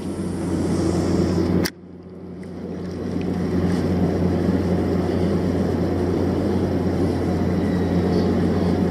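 Steady low engine hum with a rushing haze over it. About two seconds in there is a sharp knock, after which the sound drops away and swells back up.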